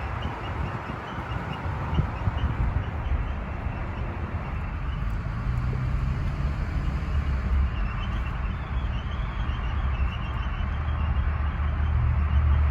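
2018 Toyota Tacoma making a rapid, evenly spaced high chirping, about four chirps a second, over steady low road and drivetrain noise while driving. The chirps come in two spells, one at the start and one from about two-thirds of the way in. It is an intermittent chirp from the rear that the owner hears only when decelerating and says is not the brakes or the belt.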